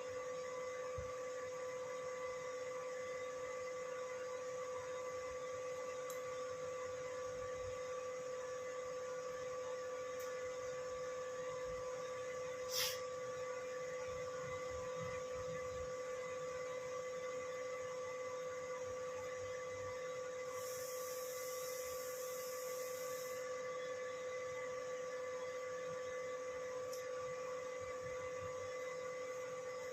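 A steady, even electrical hum with a mid-pitched tone, running unchanged, with a single sharp click about 13 seconds in and a brief patch of high hiss a few seconds later.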